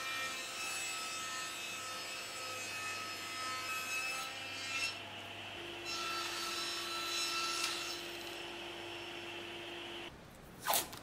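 Table saw running and ripping a narrow wood strip for solid edge banding, with a steady motor hum; the sound changes about halfway through.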